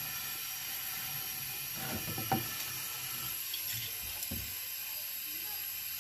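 Jupiter flush solvent and compressed air sputtering out of a refrigerator's refrigerant pipe into a plastic bottle: a steady hiss with a few short liquid spurts about two and four seconds in, as the flush drives old oil and dirt out of the circuit.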